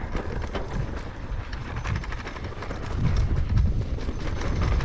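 Riding noise from a Norco Sight VLT electric mountain bike on a dirt trail: a low wind rumble on the microphone with quick knocks and rattles from the tyres and bike over the ground, louder from about three seconds in.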